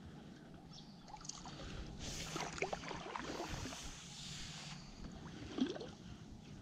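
Water splashing as a hooked bass thrashes at the surface beside a kayak, strongest for a few seconds in the middle, with one sharper splash near the end.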